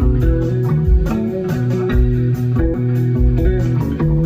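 Instrumental jam of electric guitar and electric bass over percussion with a steady beat.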